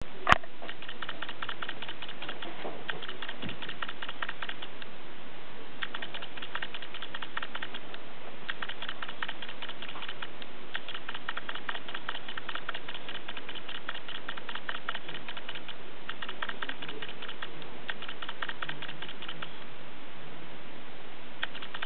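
Bursts of rapid light clicking, each lasting one to four seconds with short pauses between, over a steady hiss; one sharp click right at the start.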